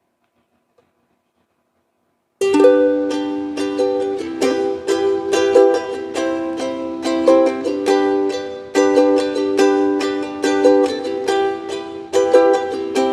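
Silence for about two seconds, then a ukulele starts strumming chords abruptly, in a steady rhythm of repeated strokes with stronger accented strums.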